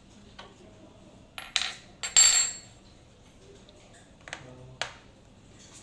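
Metal objects clinking and clattering: two sharp bursts about one and a half to two and a half seconds in, the second the loudest, then two lighter clicks near the end.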